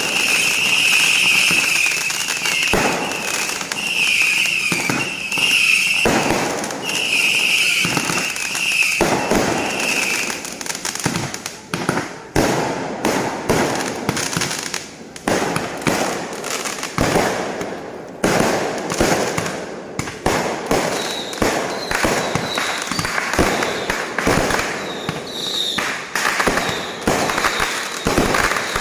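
Fireworks going off in a rapid, continuous barrage of bangs and crackles. A high whistling tone runs through the first ten seconds or so.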